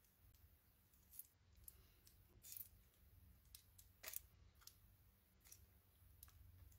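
Near silence over a low hum, broken by a few faint short clicks and rustles of paper being handled while liquid glue is dabbed from a bottle onto a small paper square.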